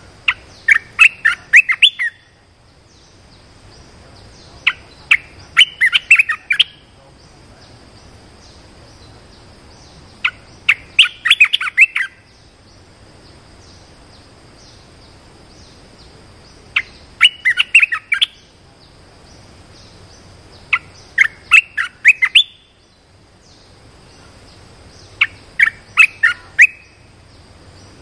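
A bulbul singing short phrases of quick notes, six phrases about five seconds apart. This is a decoy song used to lure wild bulbuls into a trap cage. A faint steady high hum runs underneath.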